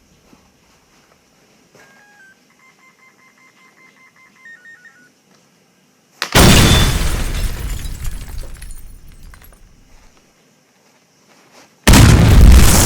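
Two sudden loud booms like explosion sound effects: the first about six seconds in, dying away over about four seconds, the second starting near the end. Before them comes a faint run of short electronic beeps.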